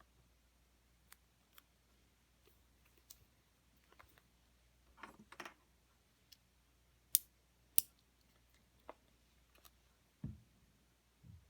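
Small sharp clicks and taps from handling the Apple Watch's packaging: a brief rustle about five seconds in, two loud clicks a little over half a second apart soon after, and two soft low thumps near the end.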